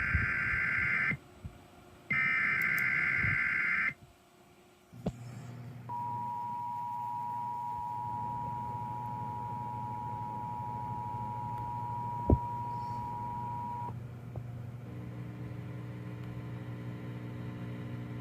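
Emergency alert broadcast over a NOAA Weather Radio receiver: two harsh data bursts of the digital alert header, then a steady alert tone held about eight seconds over a low hum, with a single click about twelve seconds in.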